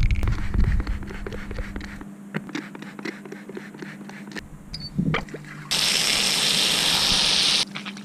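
Small clicks and knocks of parts being handled, then a steady hiss for about two seconds that starts and cuts off suddenly.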